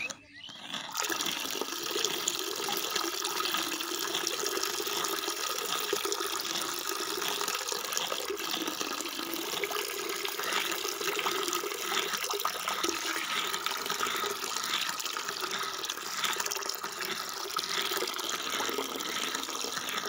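Thin stream of water pouring from the spout of a miniature model hand pump into a small water-filled trough, a steady splashing trickle that starts about a second in.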